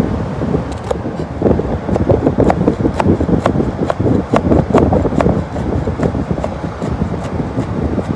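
Steel cleaver chopping leafy greens on a plastic cutting board: short knocks, about two a second, from about two seconds in. A loud, steady rushing noise runs beneath them.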